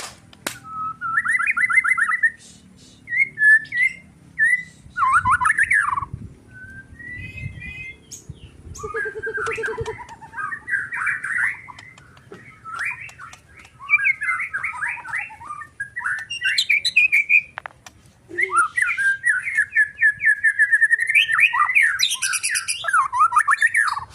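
White-rumped shama (murai batu) singing in a worked-up, fired-up state: loud bursts of varied whistled phrases, fast trills and chattering notes, separated by short pauses.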